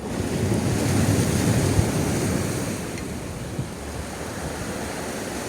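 Sea surf washing on the shore, with wind buffeting the microphone; the noise swells a second or two in, then eases to a steady level.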